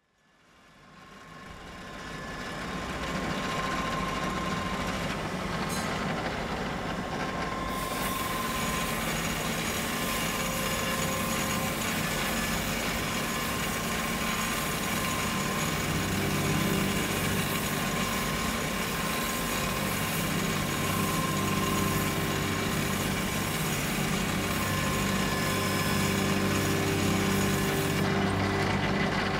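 Spinning grinding wheel running with steel ground against it, a steady grinding hiss over a low motor hum. It fades in over the first few seconds and turns harsher about eight seconds in.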